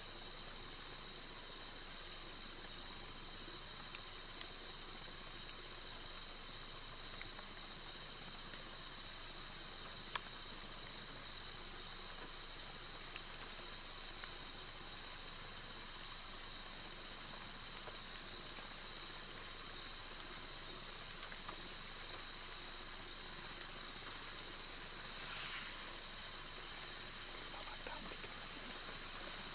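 Steady chorus of night insects, crickets, a continuous high-pitched trill over a faint hiss.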